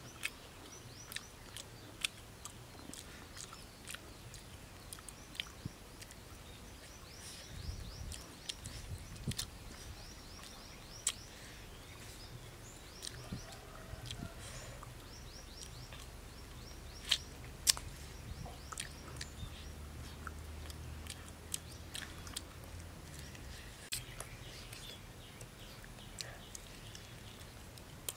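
Grilled fish bones being broken apart by hand and chewed: scattered sharp crackles and crunches, some single loud snaps.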